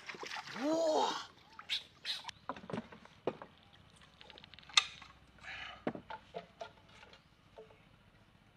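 Wooden paddle knocking and scraping against the hull of a wooden canoe: a scatter of irregular knocks, the sharpest near the middle. A short rising-and-falling squeak comes about a second in.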